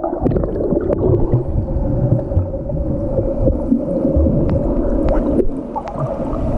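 Sea water heard from a camera held underwater: muffled gurgling and rushing with a steady low hum and scattered clicks.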